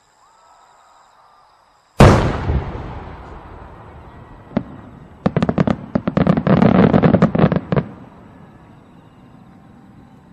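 Aerial firework shell bursting with one loud bang about two seconds in that dies away slowly. A single crack follows a couple of seconds later, then a dense run of crackling pops lasting about two and a half seconds.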